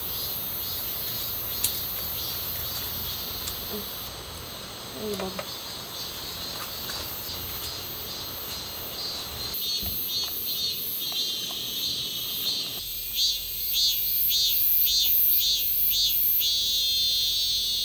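Insects chirping in a rapid, pulsing high-pitched trill that grows louder in the second half.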